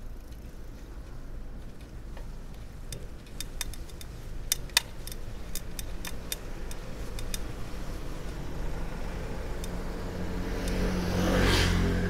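A car passing close by: a swell of engine and tyre noise that builds, peaks near the end and starts to fade. Before it there is a steady low rumble, with a run of sharp, irregular clicks a few seconds in.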